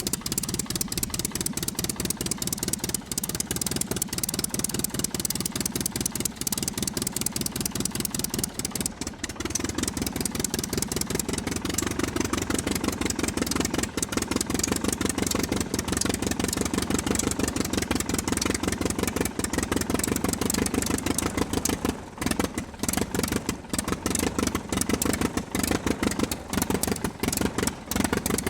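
Sound effect of a WW2-era piston aero engine running with a rapid, steady firing clatter, its low note growing fuller about ten seconds in.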